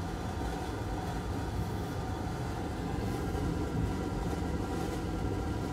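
Steady low mechanical hum with a few faint steady tones above it, unchanging throughout.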